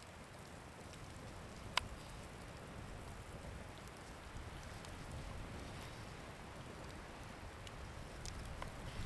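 Wind blowing, a steady hiss over a low rumble that slowly builds, with a sharp tick about two seconds in and two fainter ticks near the end.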